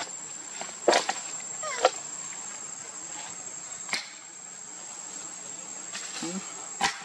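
A steady high-pitched insect drone, with a few sharp clicks about one, two, four and seven seconds in and a short squeak near two seconds in.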